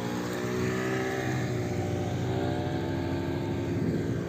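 Outboard motor of a small speedboat running as the boat gets under way, its pitch wavering slightly up and down.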